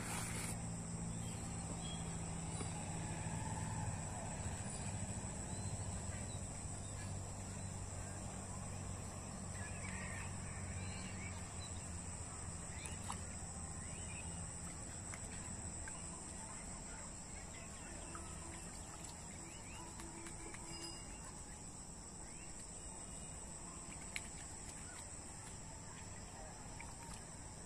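Steady, high-pitched drone of insects over open-air ambience. A low hum under it fades away by about halfway, and there are a few faint clicks, with one sharp click near the end.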